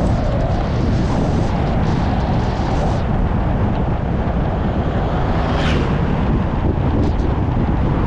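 Car driving along a country road: a steady low rumble of engine and tyres with wind buffeting the microphone. A brief hiss sounds about five and a half seconds in.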